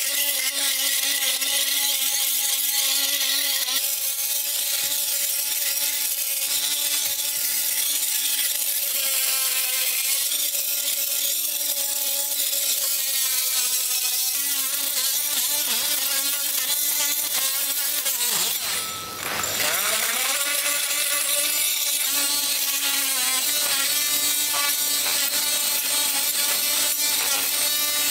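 Ryobi oscillating multi-tool running steadily with a high whine, its blade scraping old concrete off stone flagstones and out of the joints between them. About two-thirds of the way through, its pitch briefly drops and comes back up.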